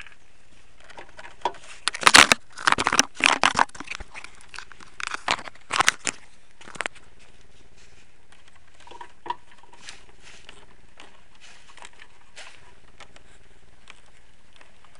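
Clicks, clinks and scraping of a hand tool and metal fittings as the terminal connectors and securing bracket are fastened onto a new car battery, busy for the first several seconds, then only a few scattered clicks.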